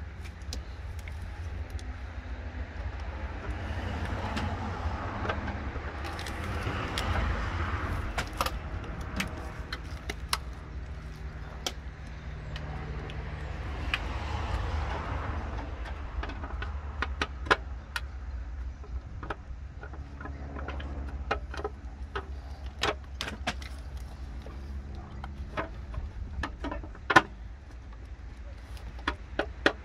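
Scattered sharp metallic clicks and clinks of hand tools and parts being handled in an engine bay during a fuel pump belt job, the loudest near the end, over a steady low rumble.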